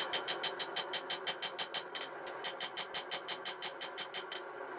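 Hand hammer striking a hot 1084 steel knife blank on an anvil, with rapid, evenly spaced blows that stop shortly before the end. A steady hum runs underneath.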